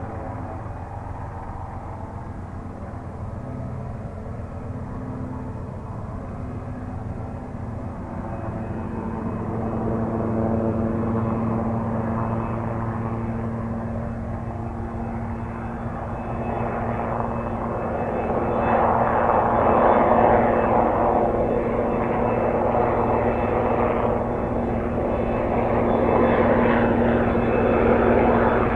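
Sikorsky S-61A heavy helicopter, its rotor and twin turboshaft engines running with a steady low hum, getting louder as it comes closer. The rotor noise swells through the second half.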